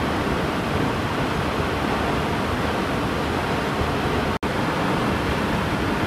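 Waterfall: a steady rush of falling water, cut off for an instant about four and a half seconds in before resuming unchanged.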